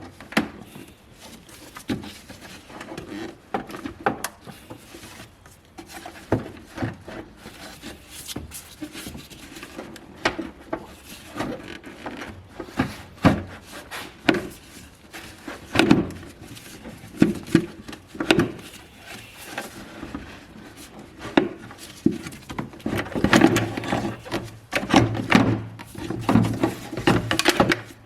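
Irregular clicks, knocks and rattles of hand work on the engine: a socket wrench on the air cleaner housing's 12 mm bolts and the plastic housing being handled. The clicking is busiest near the end.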